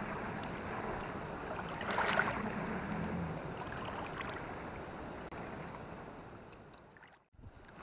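Small choppy waves lapping and splashing against the stones of a reservoir shore, swelling about two seconds in and fading out near the end.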